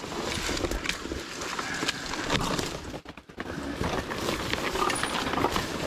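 Dense scrub rustling and scraping against a dirt bike and its rider as the bike is moved through the bushes, with irregular crackles of twigs and branches. No steady engine tone is heard.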